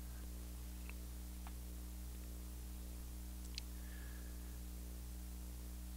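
Quiet steady electrical hum, with three faint light clicks spread through it as small bagged guitar hardware is handled.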